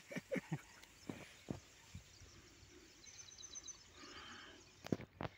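Faint scattered knocks and rustles of hands working a fish free of a nylon gill net, with two sharper clicks near the end. A short quick bird twitter sounds about three seconds in.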